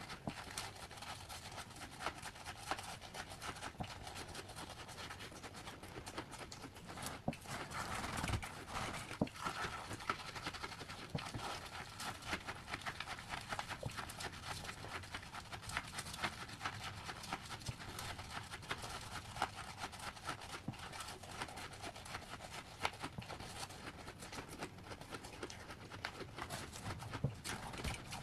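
Fluffy freezer frost crunching and squeaking as it is bitten and chewed, a steady run of small crackles, with gloved hands squeezing and scooping the frost.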